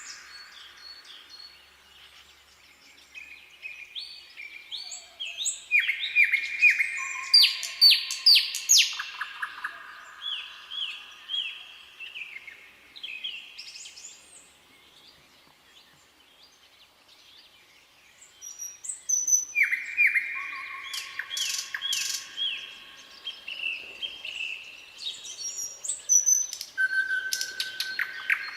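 Nightingale singing: two phrases of rapidly repeated notes and clear whistles that step from pitch to pitch, with a pause of a few seconds between them.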